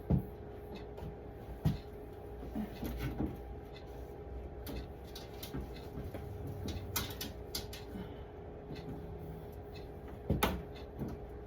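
Scattered clicks and knocks of containers and shelves being handled in an open refrigerator, with a steady hum underneath.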